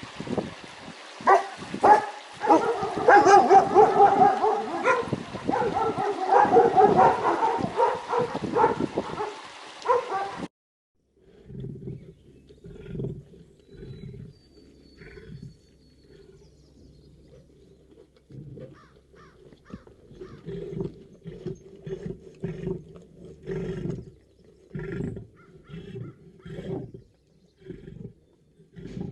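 Young animals' pitched, wavering calls, loud for about ten seconds, then cut off abruptly. A quieter, muffled clip follows with scattered short knocks and brief calls.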